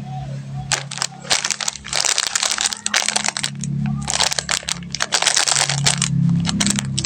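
Plastic candy wrappers crinkling and crackling as sweets are unwrapped. The crackles start about a second in and come in dense runs, over a low steady drone.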